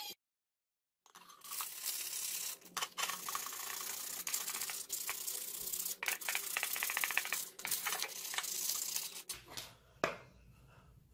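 Sandpaper rubbed by hand back and forth over a wooden knife handle: a scratchy rasping in quick, irregular strokes, starting after a second of silence and stopping shortly before a single sharp knock near the end.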